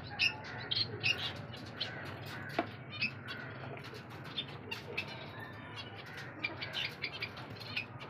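Small aviary finches chirping: many short, high calls scattered throughout, over a low steady hum.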